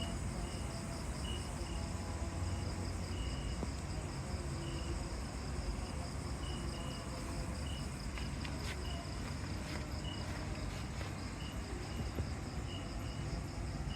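Insects, crickets among them, chirping: a steady pulsing high trill, with short higher chirps repeating about once a second, over a low rumble. A few light clicks come past the middle.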